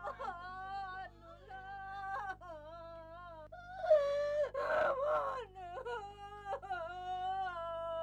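A woman wailing in grief, drawn-out high cries that hold and slide in pitch, with a louder sobbing outburst about four seconds in.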